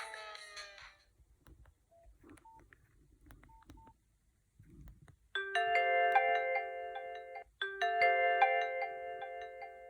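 Nokia 5130 XpressMusic preloaded ringtones from the phone's speaker. One ringtone dies away, a few short key beeps follow, and about five seconds in the next ringtone starts. Its bright chime-like phrase of held tones plays twice with a short break between.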